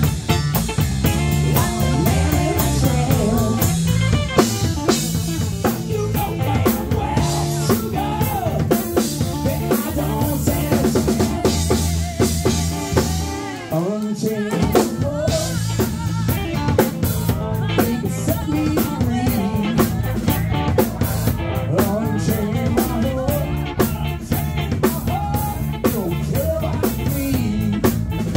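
Live blues band playing an instrumental passage: electric guitars over bass and a drum kit with busy snare and bass drum. The low end drops out for a moment about halfway through, then the band comes back in.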